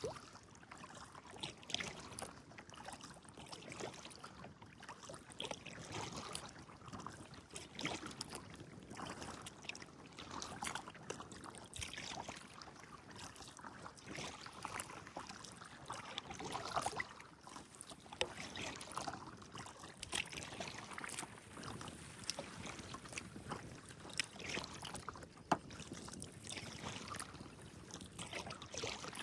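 Kayak paddling on calm water: the paddle dipping and splashing irregularly, with water trickling off the blades.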